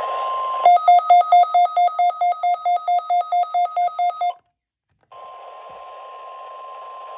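NOAA Weather Radio required weekly test signal heard through a weather radio receiver. A steady tone near 1 kHz over hiss gives way about two-thirds of a second in to a fast series of electronic beeps, about five a second, for some three and a half seconds. After a short break of silence, the steady tone over hiss returns.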